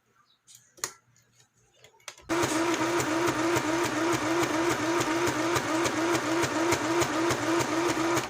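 Mini electric sewing machine (YASM-505A) starting up about two seconds in and running steadily, its needle stitching in an even rhythm of about four strokes a second, then stopping abruptly. A single click comes just under a second in.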